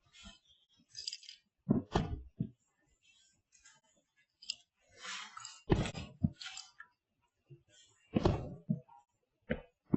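A series of irregular dull thumps, about six, short and sharp with quick decays, with a brief crackling hiss about five seconds in.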